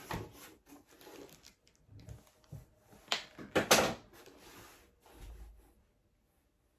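Rummaging in an opened cardboard shipping box: scattered clicks and paper rustling, with two louder rustling scrapes close together about three and a half seconds in and a soft thud after them.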